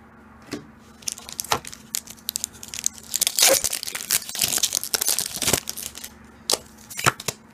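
Foil booster pack wrapper crinkling and tearing, a dense crackle that is loudest for a couple of seconds around the middle, with scattered sharper crackles before and after.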